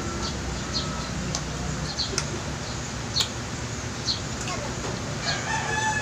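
Small birds chirping in short high notes about once or twice a second over a steady low hum, with faint voices in the background near the end.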